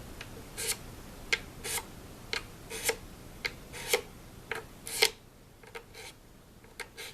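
Razor blade scraping a mandolin's wooden fretboard back and forth in short strokes, about two a second, the loudest about five seconds in.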